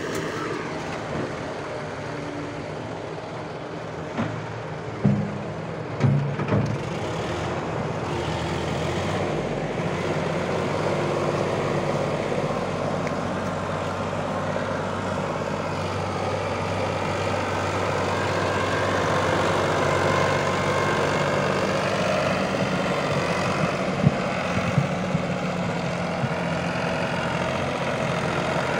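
Diesel engine of a Sonalika 740 DI tractor running under load as it pulls a trolley full of mud, growing louder as it comes closer. Several loud clanks about four to six seconds in and again near the end.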